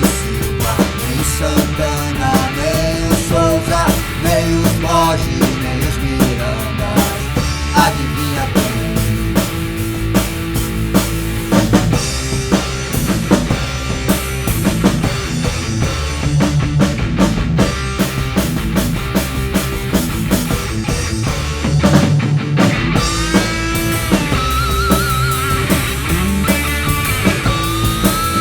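Rock song from a band recording, with a drum kit hitting steadily under electric guitars. A wavering high lead line comes in near the end.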